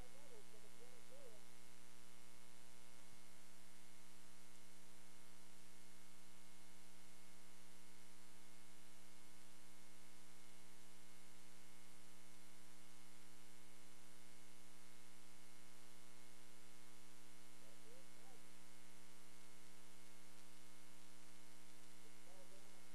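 Steady electrical hum and buzz on the recording, a stack of unchanging tones with no clear game sound, with faint brief wavering sounds about three-quarters of the way through and again near the end.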